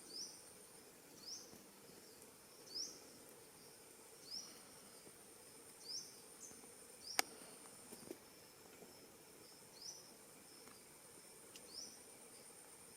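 Quiet forest ambience: a steady high-pitched insect whine, with a short rising chirp repeating about every one and a half seconds. A sharp click comes about seven seconds in, followed by a softer knock.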